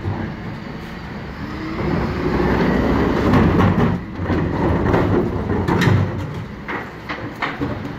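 Refuse collection lorry's engine running, growing much louder about two seconds in, with several sharp knocks and clatters near the end.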